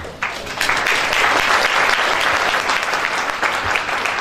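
Audience applauding, a dense patter of clapping that swells quickly just after the start and eases off near the end.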